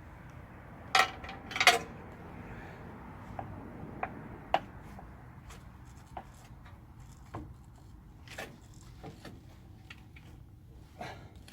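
Scattered sharp clinks and knocks, like metal parts or tools being handled, with two louder ones about a second in and lighter taps after.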